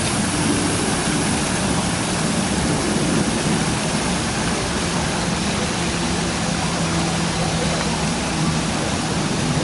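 Steady rushing noise with a faint low hum under it.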